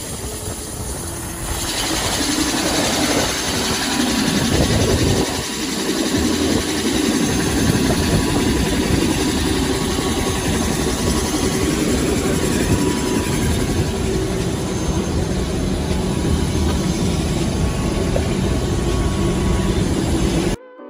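Tour helicopter's engine and rotor running, a loud steady drone heard from inside the cabin. It grows louder about two seconds in and cuts off suddenly near the end.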